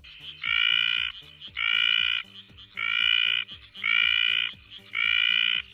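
An animal call repeated five times, each a loud, steady, nasal-pitched note lasting about half a second, about once a second, over quiet background music with a steady beat.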